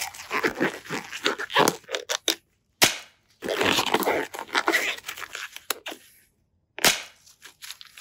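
Black disposable gloves being pulled onto both hands, a rubbery crinkling and stretching rustle, with two sharp snaps, one about three seconds in and one about seven seconds in.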